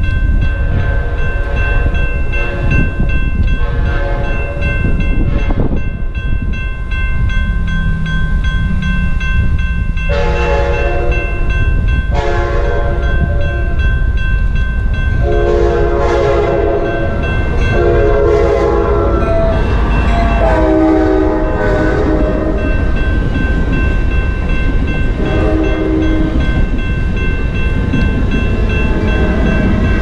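Sounder commuter train's horn sounding a series of long chord blasts as it approaches a grade crossing, starting about a third of the way in, over the steady ringing of the crossing's warning bell. The train reaches the crossing near the end. Strong wind rumbles on the microphone.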